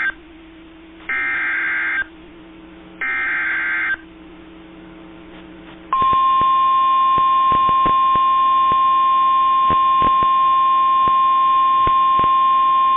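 Emergency Alert System SAME header data bursts: the tail of one harsh, warbling digital burst, then two more bursts of about a second each, a second apart. About six seconds in, the steady 1050 Hz NOAA Weather Radio warning alarm tone starts and holds, with occasional faint clicks.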